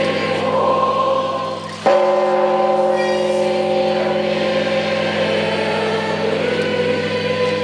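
A large, heavy church bell, the 7,150 kg Credo bell, is tolled. The ringing from one stroke hums on, and about two seconds in the clapper strikes again, starting a fresh, loud, long-sustained ring with several steady tones.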